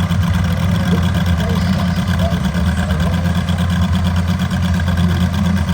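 An engine idling steadily with a low, evenly pulsing drone.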